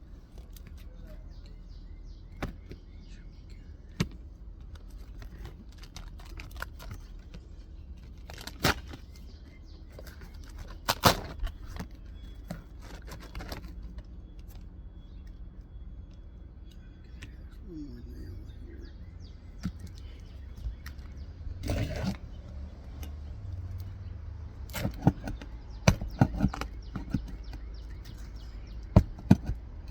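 Scattered metal clicks, taps and scrapes of a hand prying tool working under asphalt 3-tab shingles to break them loose from their nails, over a steady low rumble.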